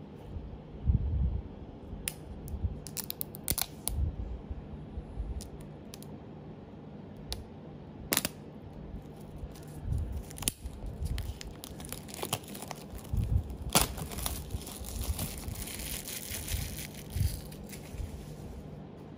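Clear plastic shrink-wrap being torn and peeled off an Apple AirPods Pro box: scattered sharp crackles and tears, then a longer stretch of crinkling near the end. Dull knocks come from the cardboard box being handled.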